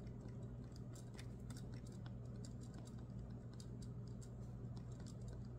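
Pen writing on planner paper: faint, irregular little scratches and taps of the pen tip, over a steady low hum.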